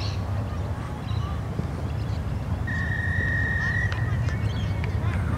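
Referee's whistle, one steady blast of just over a second a little past halfway, stopping play at a ruck in a junior rugby match. Scattered voices of players and spectators and a low rumble lie underneath.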